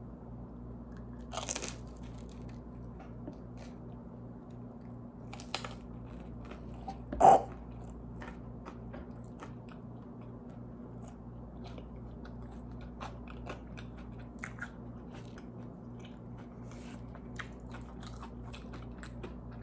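Close-up chewing and biting on cauliflower-crust pizza, with small crunches and wet mouth clicks scattered throughout. One louder short sound comes about seven seconds in.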